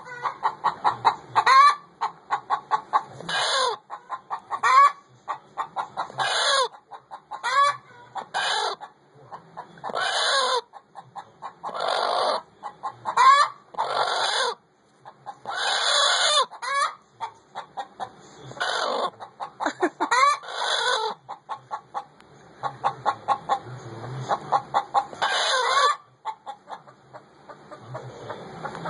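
Hen clucking and calling over and over while laying an egg: quick runs of short clucks broken every second or two by longer drawn-out calls that bend in pitch.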